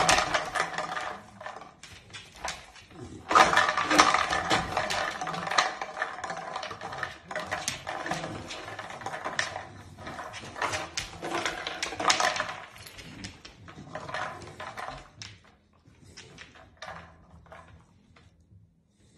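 Empty plastic bottle hung on a string clattering and crinkling as a dog knocks it with its head, a rapid run of plastic knocks that thins out near the end.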